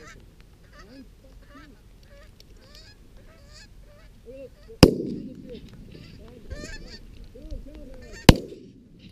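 Geese honking repeatedly, then two loud shotgun shots about three and a half seconds apart, each with a short echo.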